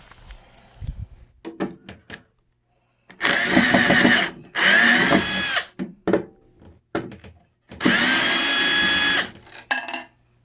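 Power drill unscrewing a screw from a control panel cover on a higher clutch setting, run in three bursts of about a second each. The motor whine rises in pitch as it spins up each time, with small clicks and handling knocks between the bursts.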